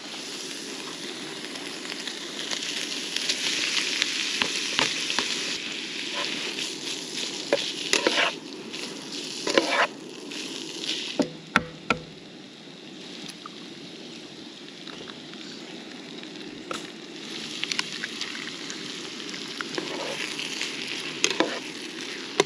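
Breakfast hash of meat and vegetables frying in a skillet on a camp stove, a steady sizzle with a metal spatula scraping and stirring. A couple of sharp taps about halfway through as eggs are cracked.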